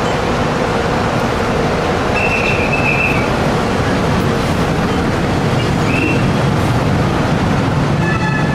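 An elevated light-rail train runs past with a steady rumble. Its wheels give brief high squeals about two seconds in and again around six seconds, with another short squeal near the end.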